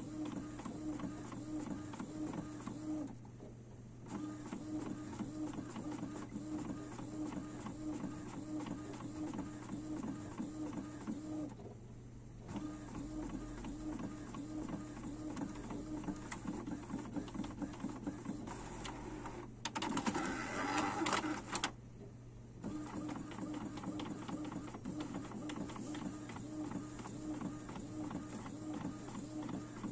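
Epson XP-255 inkjet printer printing: the print head shuttles back and forth in a steady mechanical rhythm, with short pauses twice and a louder, noisier stretch of about two seconds roughly two-thirds of the way through.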